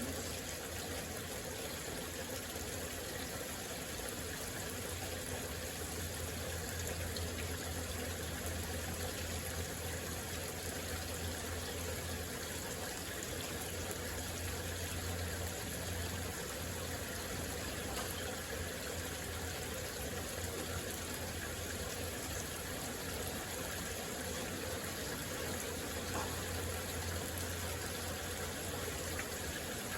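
Heavy rain falling steadily during a thunderstorm, an even hiss that does not let up.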